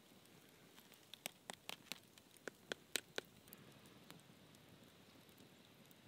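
Campfire crackling: a run of small sharp pops and snaps, loudest in the middle, over a faint steady hiss of burning embers.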